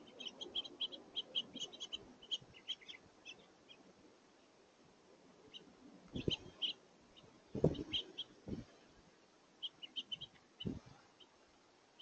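House finches chirping: a quick run of short high chirps for the first few seconds, then scattered groups of chirps. A few low thumps come in the middle, the loudest about seven and a half seconds in.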